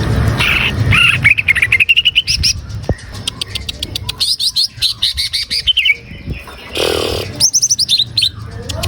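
Green leafbird (cucak ijo) singing: fast runs of short, rising chirps in several rapid series, with a brief harsh call about seven seconds in.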